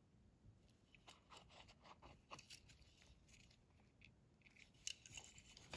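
Near silence, with faint scattered clicks and rustles of small diecast toy trucks being turned in the fingers, a little more of them near the end.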